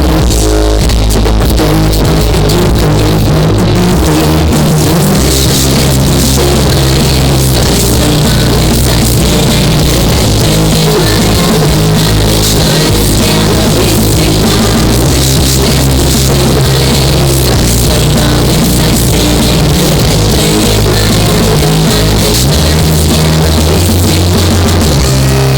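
Loud rock music with drums and heavily distorted instruments, playing steadily.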